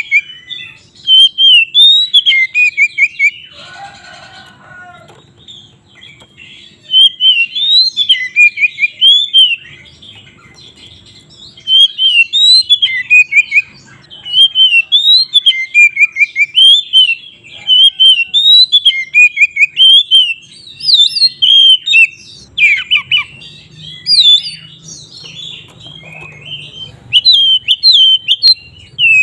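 Oriental magpie-robin (kacer) singing loud, rapid, varied whistled phrases in bursts of a few seconds separated by short pauses, with one harsher, grating call about four seconds in.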